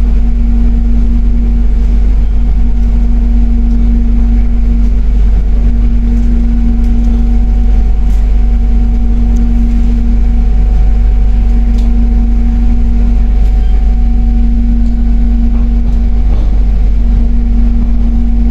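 Cabin noise inside an electric airport rail link train carriage while it runs: a steady low rumble with a constant humming tone over it and a few faint clicks.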